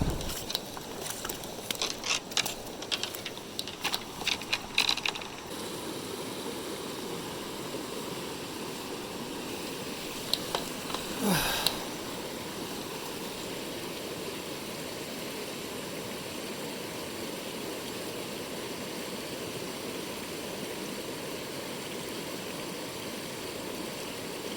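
Mountain stream rushing steadily, with a run of sharp clicks and knocks in the first five seconds and one short louder noise about eleven seconds in.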